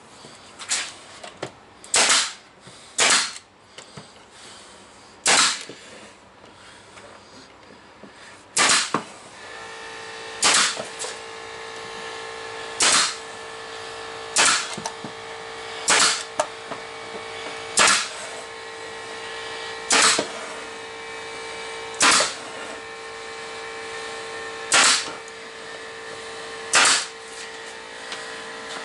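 A string of about fourteen sharp, single bangs, spaced every one to three seconds. About ten seconds in, a steady humming machine starts up and keeps running under them.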